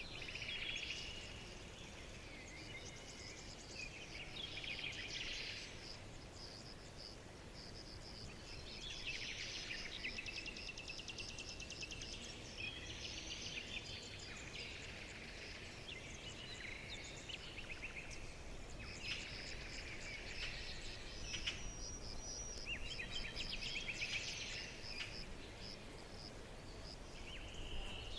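Several songbirds singing and chirping, with short trilled phrases coming every few seconds. A steady low rumble runs underneath.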